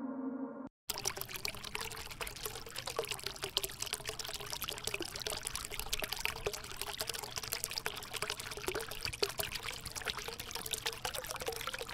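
Water pouring from a PVC pipe and splashing into a glass aquarium as the tank fills, a steady splashing trickle that starts just under a second in, after the music cuts off.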